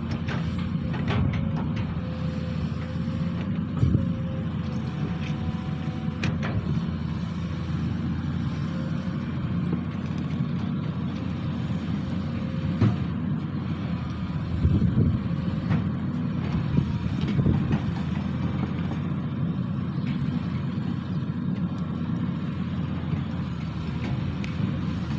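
Sany SY215C excavator's diesel engine running steadily, with a handful of short knocks scattered through it.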